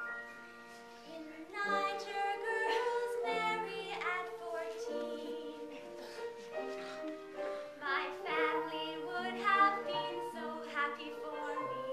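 Women singing a comic song on stage, with vibrato on the held notes; the singing gets louder about a second and a half in.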